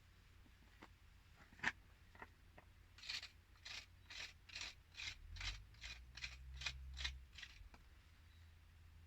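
A single sharp click, then about a dozen quick scraping strokes, a little over two a second, as soil is pushed and packed into a tap's valve body to shield its inner ball from the heat.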